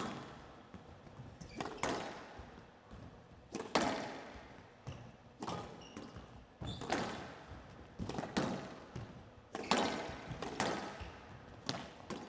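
Squash rally: the ball struck by rackets and hitting the walls of a glass court, a sharp crack every second or so, often in quick pairs of racket hit and wall hit, each ringing briefly in the hall.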